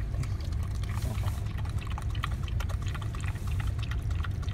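Golden retriever lapping corn soup from a bowl: rapid, irregular wet licks and slurps, over a steady low hum.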